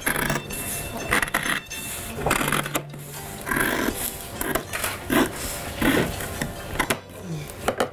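Fabric scissors snipping repeatedly through the layered cloth of a sewn pad as its edge is trimmed, a short cut about every second.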